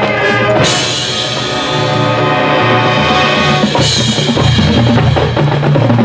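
High school marching band playing: full-band chords over the drumline and bass drums, with a loud accent about a second in and another about four seconds in.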